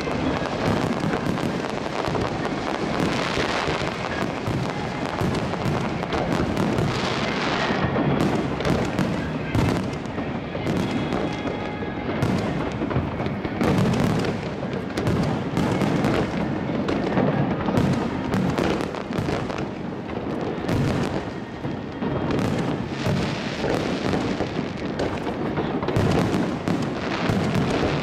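Fireworks at close range: a dense, unbroken barrage of bangs and crackling as fountains spray sparks and aerial shells burst overhead.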